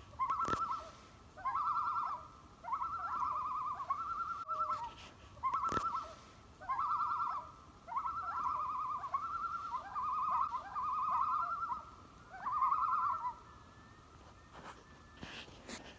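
A bird's quavering, trilled cry, repeated about a dozen times. Each cry lasts about a second and holds one steady pitch.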